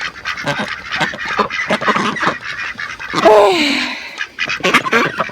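Ducks quacking, many short calls overlapping in quick succession, with one longer, louder call falling in pitch about three seconds in.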